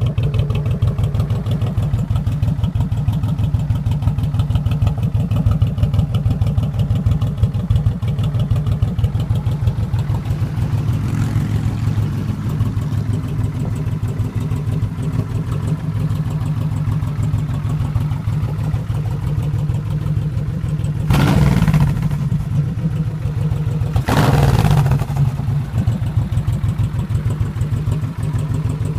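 Honda VTX 1800C's large V-twin engine running at a steady idle after a cold start, with an even low pulse. Twice, about three-quarters of the way through, a brief louder rush of noise rises over it.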